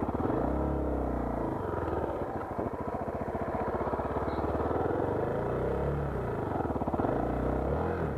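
Small motorcycle engine running steadily, its pitch rising and falling a little.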